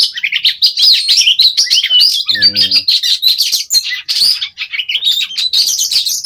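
Oriental magpie-robin (kacer) singing loudly during a pitting bout against a rival, a fast, unbroken string of chirps, whistles and trills. A brief low hum sounds under it about two and a half seconds in.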